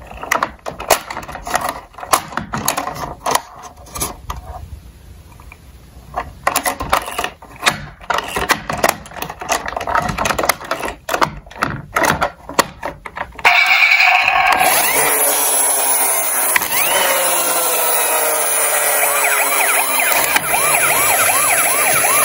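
Small toy cars clicking and clattering irregularly for about thirteen seconds. Then a toy emergency vehicle's electronic siren switches on suddenly and sounds steadily, with several overlapping tones rising and falling.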